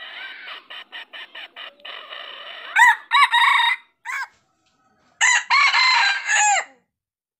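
Red junglefowl rooster calling: a run of quick clucks, then a short crow about three seconds in and a second crow near the end.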